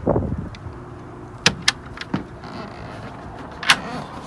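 A low thump, then a few sharp clicks and knocks, the last near the end the loudest, against a steady low hum: boat fittings, such as the convertible standing platform and aft seat, being handled.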